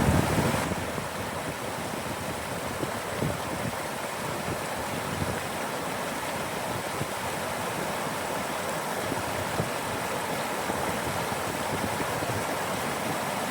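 Mountain stream flowing: a steady rush of running water, with a brief louder low swell right at the start.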